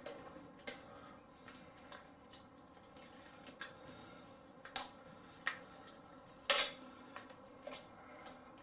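Light metallic clicks and scrapes of small motorcycle handlebar parts being worked by hand as the throttle cable is unscrewed from the throttle housing. A handful of separate clicks, the loudest about two-thirds of the way through.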